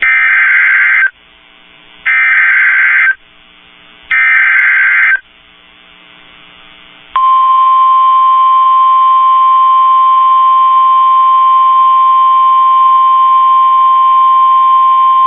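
NOAA Weather Radio EAS alert: three one-second bursts of warbling SAME digital header data, about a second apart, then about seven seconds in the steady 1050 Hz warning alert tone, the signal that a warning-level message is about to air.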